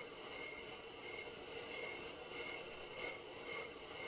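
Recorded cricket chorus played through a Pure Enrichment WavePremium sleep sound machine on its nighttime setting: steady high-pitched chirping that pulses evenly.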